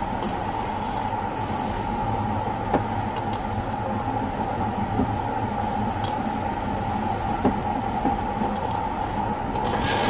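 Steady hum and low rumble of a running vehicle, with a constant mid-pitched tone, a hiss rising and fading every two to three seconds, and a few light clicks.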